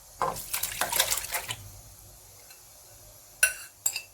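Homemade lemonade poured out in a splashing stream for about a second and a half, then two ringing clinks of a dish or glass near the end.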